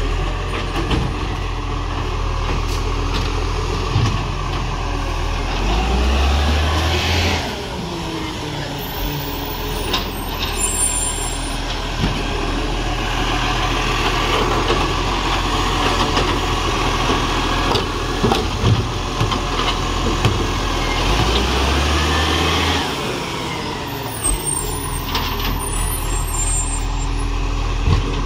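Side-loading garbage truck working: its diesel engine runs steadily and revs up twice as the hydraulic arm lifts and tips a wheelie bin, each time followed by clatter and knocks from the bin being emptied into the hopper.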